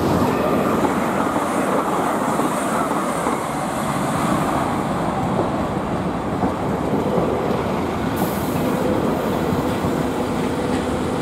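InterCity 225 train of Mark 4 coaches running past on the main line: a steady rolling noise of wheels on rail. A faint steady hum comes in about halfway.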